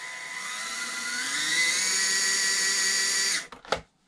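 Mini RC crawler's 51-turn 180 brushed motor and reduction gearbox whining with the wheels spinning free on its low-speed setting. The whine rises in pitch about a second in, holds steady, then cuts off suddenly near the end, followed by a couple of light knocks.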